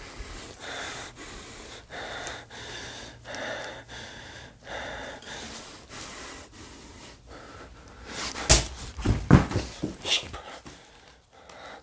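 A person breathing hard in a steady rhythm while walking, then several sharp, loud cracks and crunches of debris underfoot about two-thirds of the way through.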